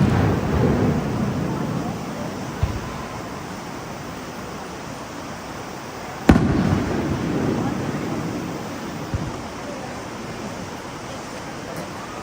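Aerial firework shells bursting overhead: one loud bang about six seconds in, its rumbling echo dying away over the next few seconds, with a fainter pop a couple of seconds in and another near nine seconds. At the start the rumble of the previous burst is still fading.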